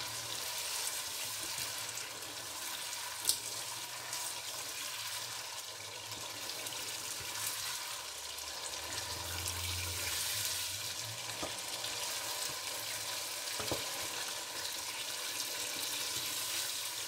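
Chicken in spice masala sizzling in a pot while a wooden spoon stirs it: the bhuna stage, where the masala is fried down in its oil with a splash of water. A steady sizzle, with a couple of sharp knocks.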